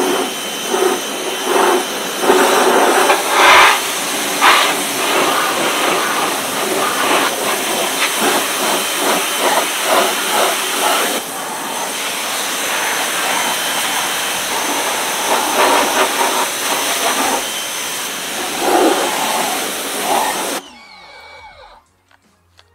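Electric pressure washer's water jet blasting caked mud off a Jeep's rear wheel well and undercarriage: a loud, steady hiss that surges and spatters as the jet moves over different surfaces. It cuts off suddenly about twenty seconds in.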